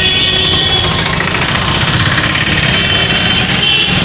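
Busy street traffic: motorcycle, scooter and auto-rickshaw engines running past, a loud, steady din.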